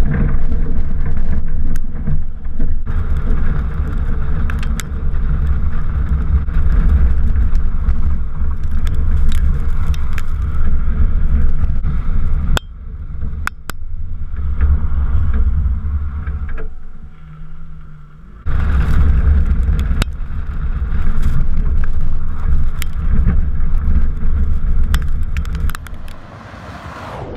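Car driving fast on a gravel road, heard from a camera mounted low on its side by the front wheel: heavy wind buffeting on the microphone over tyre noise on the gravel, with sharp ticks of small stones flicked against the body. It eases for several seconds in the middle, then picks up again, and drops off near the end.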